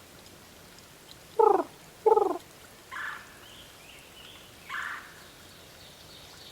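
Red-bellied woodpecker giving its rolling churr call: two loud short calls close together, then two fainter ones a second or two apart.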